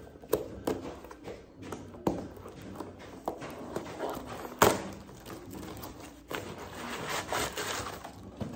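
Packaging being torn open and pulled apart by hand: irregular rustling and crinkling of a padded mailer and its wrapping, broken by many small sharp clicks and one loud snap about four and a half seconds in.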